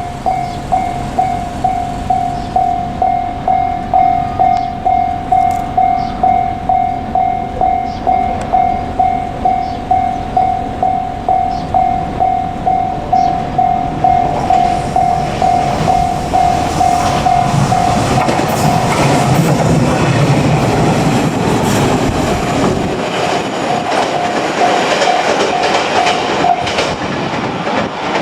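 A level-crossing warning bell rings in a steady pulse, about two strokes a second. Partway through, a JR Kyushu 817 series electric train approaches and passes with a rising rumble and wheel clatter. The bell stops near the end.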